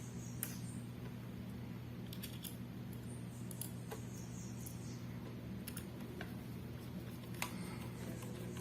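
Scattered light clicks and a short scrape of a Phillips screwdriver and small screw being worked into the mounting bracket of a laptop drive caddy, over a steady low hum.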